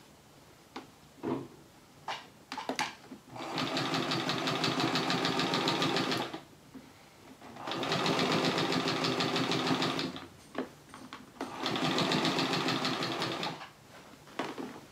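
Electric sewing machine stitching through the layers of a quilt in three runs of a few seconds each, a fast, even stitch rhythm. Between the runs come small clicks and rustling as the quilt is shifted under the needle.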